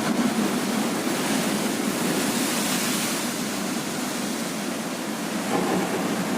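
Heavy ocean surf breaking, a steady rush of noise that swells a little about two seconds in.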